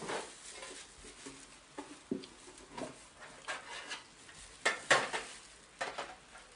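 A cardboard box being handled: lifted off a shelf, opened and rummaged through, with a run of irregular clicks and rustles. The loudest are two sharp knocks about five seconds in.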